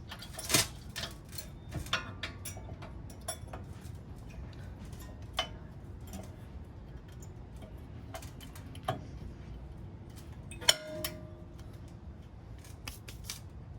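Irregular metallic clicks and clinks of brake pads being fitted into their caliper bracket and abutment clips, with a few louder clanks. The loudest comes about eleven seconds in and rings briefly.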